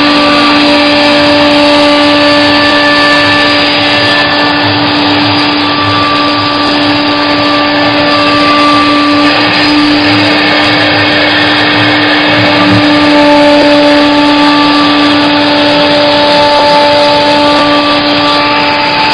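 CNC router spindle running as it cuts wood: a steady whine over loud, even cutting noise, with some of the upper tones changing pitch about halfway through.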